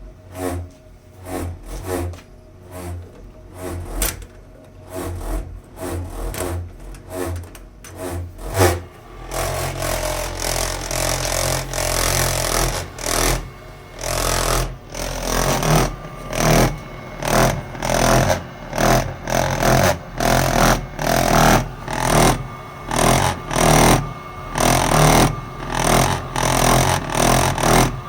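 Weil-McLain boiler making a vibrating noise. About nine seconds in, a steady low hum sets in, with a rhythmic pulsing of roughly once a second that grows louder.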